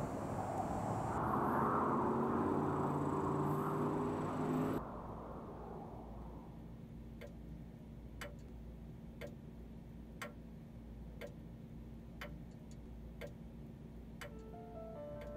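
A loud rumbling roar with a low drone cuts off suddenly about five seconds in. Then a cat-shaped wall clock ticks about once a second over a faint low hum, and soft piano notes begin near the end.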